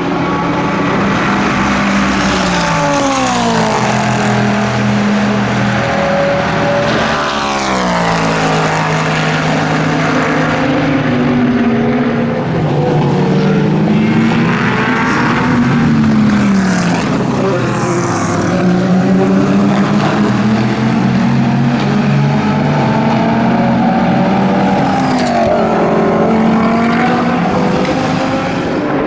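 Several race car engines passing in a pack, among them the Chrysler Viper GTS-R's V10, their notes dropping as they downshift and climbing again under acceleration.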